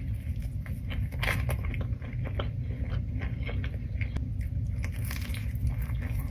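A person chewing and biting food close to the microphone: irregular crisp crackles and crunches over a steady low hum.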